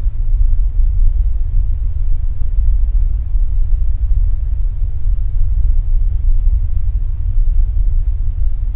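Deep, steady low rumble, a soundtrack drone with no higher sounds over it.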